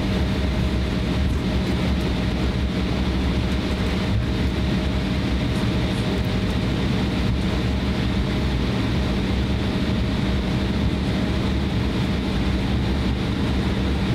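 Cabin noise of an Embraer E170 regional jet taxiing after landing: a steady low rumble from its engines at idle, with a constant low hum running through it.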